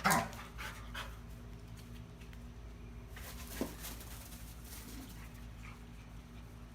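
A dog's faint small sounds over a steady low hum, with one brief sharp sound about three and a half seconds in.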